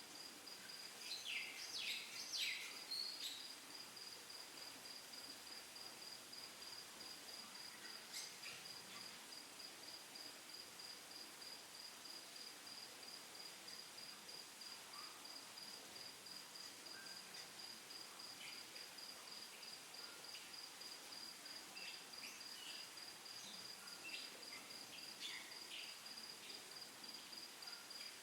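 Faint insect trill, a steady, fast-pulsing high note, with a cluster of short chirps about one to three seconds in and a few more near the end.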